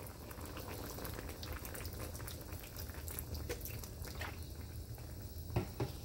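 Soy-seasoned broth with chicken, shrimp and vegetables boiling hard in a pan, with a steady bubbling and many small pops. Two louder clicks come near the end.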